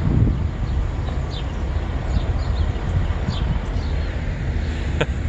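Steady low rumble of highway traffic, with short high bird chirps now and then and two sharp clicks near the end.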